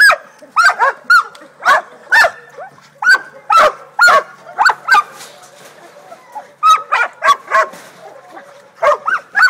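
Two young Catahoula leopard dogs barking rapidly and repeatedly at a wild boar penned in a wire cage, baying it as hog-dog training. The barks come in quick runs, with a short lull a little past halfway.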